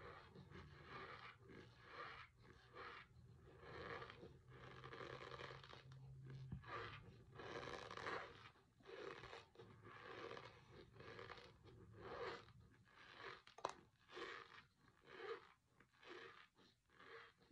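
A mouthful of dry Argo cornstarch being chewed close to the microphone: a steady run of soft, squeaky crunches, about one or two a second.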